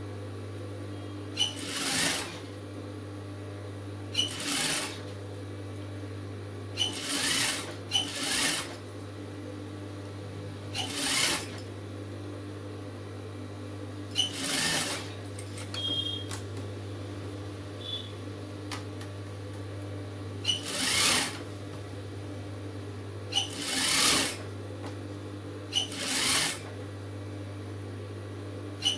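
Industrial sewing machine stitching in nine short runs of about a second each, sewing down the folded edges of a blouse lining, with a steady low hum between the runs.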